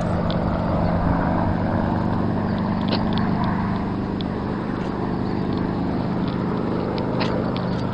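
Enstrom 480B helicopter, with its Rolls-Royce 250 turboshaft engine and rotor, running steadily: a constant low hum over even noise, with a few faint ticks.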